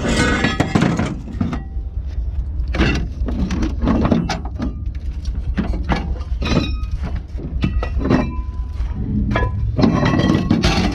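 Pieces of scrap metal, likely auto cast aluminum, clanking and thudding as they are tossed onto a pile, a dozen or so irregular impacts, some ringing briefly. A vehicle engine rumbles low and steadily underneath.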